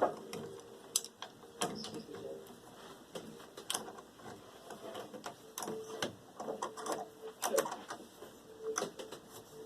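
Irregular light clicks and taps, a dozen or so scattered unevenly, with a faint hum that comes and goes.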